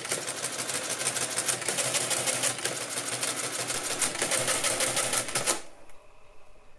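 Mercedes Euklid Model 21 electromechanical calculator running an automatic division: its motor-driven mechanism clatters rapidly and evenly through repeated subtract and add cycles as the carriage shifts column by column. The clatter stops abruptly about five and a half seconds in, when the division is finished.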